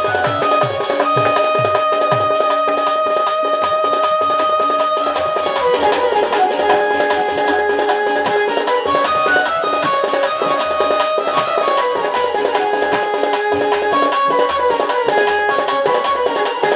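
Instrumental folk music for a danda dance: a sustained melody line moving from note to note every second or so, over fast, dense drumming.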